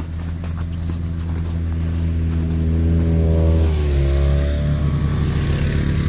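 ATV engine running as it drives past, growing louder and dropping in pitch about three and a half seconds in as it goes by.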